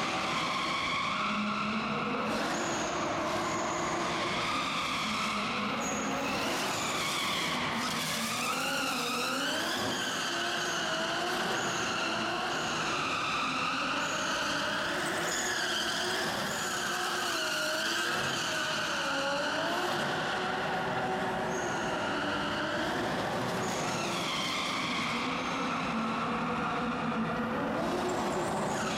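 Nissan 200SX drift car's engine revving hard, its pitch swinging up and down again and again as the car is held in a slide, with tyres squealing against the concrete.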